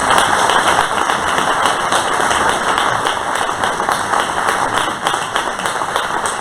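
Audience applauding steadily, many hands clapping at once in a dense spatter.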